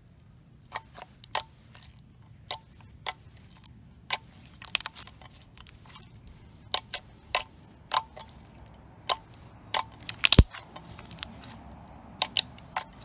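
Glossy clear-and-white glue hybrid slime clicking as fingers press into it: sharp, irregular clicks about two a second, with one louder click about ten seconds in.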